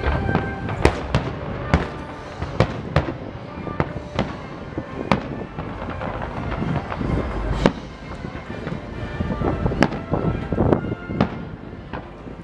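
Distant fireworks show: an irregular string of sharp bangs and booms, several a second at first and sparser later, over a constant low rumble.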